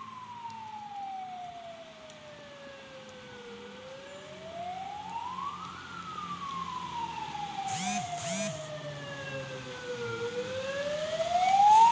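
Emergency-vehicle siren in a slow wail, falling in pitch for about four seconds and rising for about two, twice over, growing louder toward the end. A short, sharp sound cuts in about eight seconds in.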